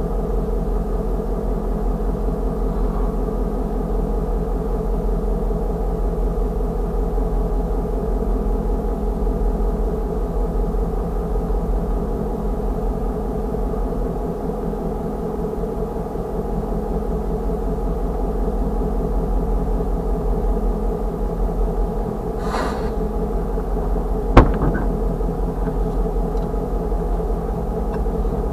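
An engine idling with a steady low hum. A brief hiss comes about 22 seconds in, and a single sharp click a couple of seconds later.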